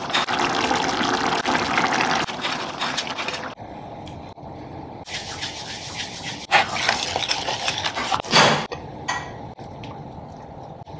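A spoon stirring thick, wet curry in a steel pressure cooker, with squelching and scraping for the first few seconds. About five seconds in comes a hissing rustle as dried herbs are rubbed between the palms over the pot, with a brief louder thump near the end.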